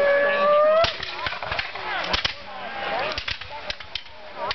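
A drawn-out shouted call, then ragged, irregular musket fire from a line of reenactors' flintlock muskets, single shots and a quick cluster of three a little after two seconds in, with shorter shouts between them.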